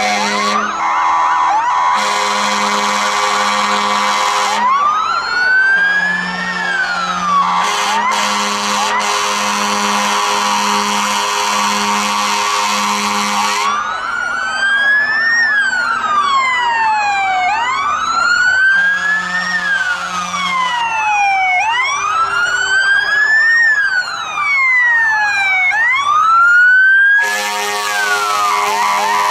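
Several fire-engine sirens wailing together, each sweeping up and down about every two seconds, with long horn blasts cutting in and out over them.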